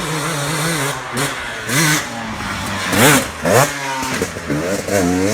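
Two-stroke KTM dirt bike engine being ridden, its revs wavering up and down, with quick rev rises and drops about three seconds in and again near the end.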